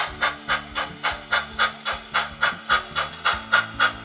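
Tsunami 2 steam sound decoder in a model steam locomotive, chuffing at an even beat of about four exhausts a second over a steady low hum, as the locomotive works up a 3% grade; the decoder's dynamic exhaust sets the chuff by the load.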